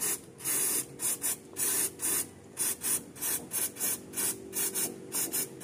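Aerosol spray can with a thin straw nozzle hissing in quick short bursts, about three a second, with two longer half-second sprays in the first two seconds. It is cleaning spilled oil off a scooter's engine around the drain bolt.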